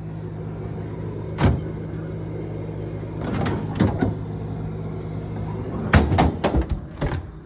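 A steady low engine hum, with a few sharp knocks or clacks over it and a quick run of them near the end.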